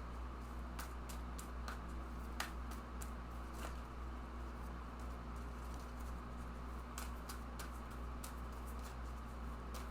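Tarot cards being shuffled and handled: soft, scattered clicks and flicks, a few a second, over a steady low hum.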